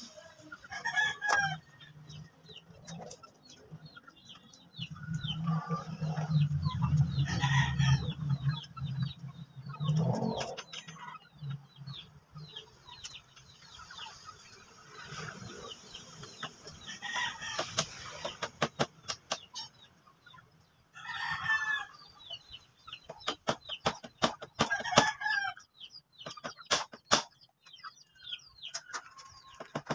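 Chickens clucking and a rooster crowing several times. A low rumble lasts several seconds about five seconds in, and a run of sharp clicks and taps comes near the end.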